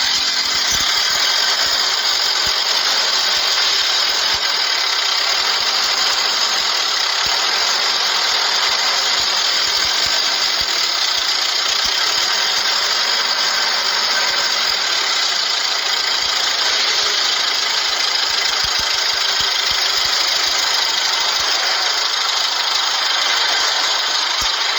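Vehicle engine idling steadily, run briefly to mix an oil additive into the old engine oil.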